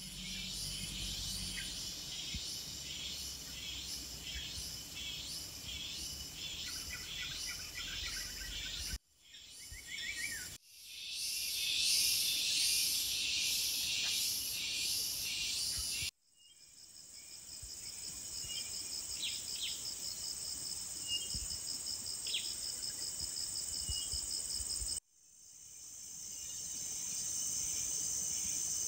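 Forest insect chorus: high-pitched pulsing trills repeating about twice a second, later a steady high buzzing, with a few short bird chirps mixed in. The sound breaks off abruptly three times and fades back in.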